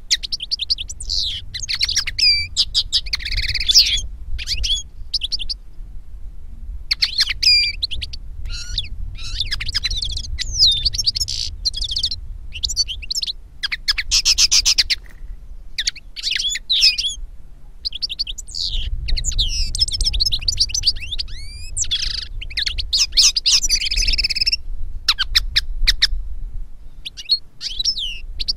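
Finch song: fast twittering phrases of chirps, trills and sliding notes, a few seconds each, with short pauses between them.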